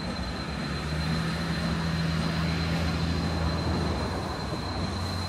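A train rolling slowly into a rail spur, with a steady low engine hum under a noisy rumble and a thin, steady high whine.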